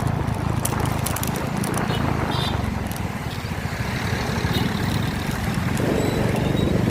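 A vehicle engine running steadily, a low rumble with a fast even pulse, with some light rattling clicks over it.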